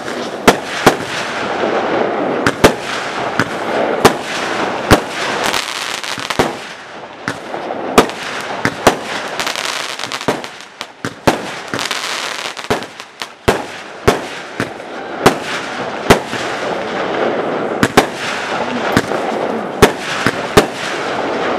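Aerial fireworks display: a rapid, irregular series of sharp bangs from shells bursting, over a continuous hissing noise. The hiss thins out for a few seconds around the middle.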